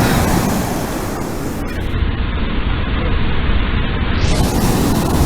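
Steady roar of surf and wind at the beach, with wind rumbling on the microphone.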